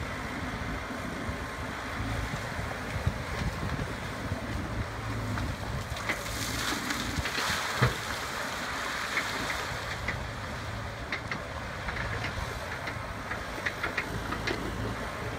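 Wacker Neuson ET90 mini excavator's diesel engine running steadily over the rush of river water, with stones clattering and a sharp knock near the middle as the bucket works gravel, and scattered clicks of stone later on.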